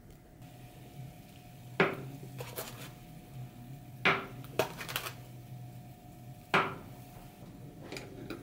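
A saucepan of water on the stove being knocked by frozen tangyuan dropped in by hand and by a wire skimmer stirring through the water: a handful of sharp clinks a second or two apart. A faint steady hum runs underneath.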